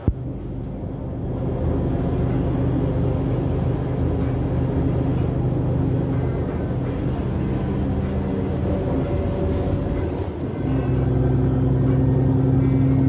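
Inside an Otokar Kent C-12 city bus under way: a steady engine hum with road and cabin rattle noise, growing louder about ten and a half seconds in.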